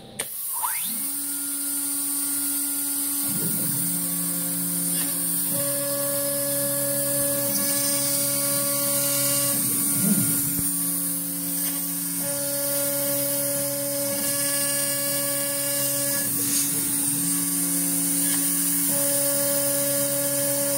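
CNC router milling with a small end mill: the spindle runs at a steady high whine, while the machine's axis motors hum in tones that switch on and off every few seconds as the cutter moves along its path.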